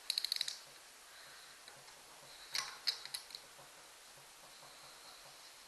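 Hand ratchet wrench clicking in a quick run of about eight clicks at the start, then a few separate sharp metallic clicks about two and a half to three and a half seconds in, while loosening a connecting-rod cap screw on an outboard crankshaft.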